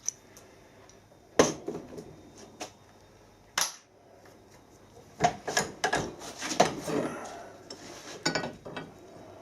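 Metal tools and parts being handled: irregular clinks and knocks of steel against steel, several of them close together between about five and seven seconds in.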